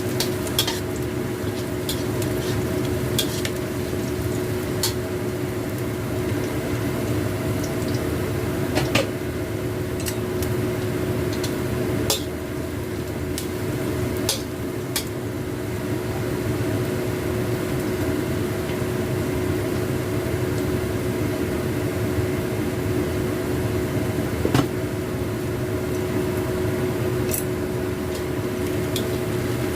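Stir-fry sizzling in a pan, with a steady hum under it and scattered sharp clicks and scrapes of the spatula against the pan.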